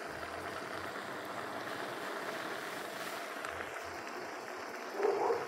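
Steady hiss from a pot of yam and green vegetables simmering on a gas stove. There is a brief louder sound near the end.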